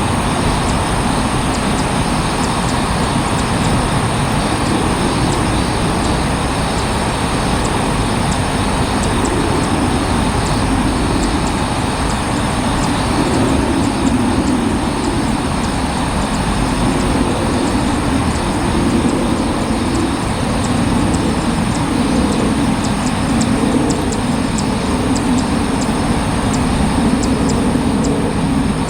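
Steady, loud outdoor background noise with a low rumble and no distinct events.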